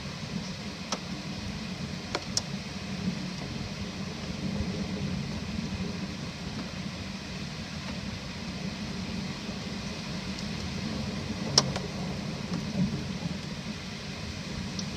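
Steady rain falling during a thunderstorm, with a low rumble underneath and a few sharp taps, the loudest about twelve seconds in.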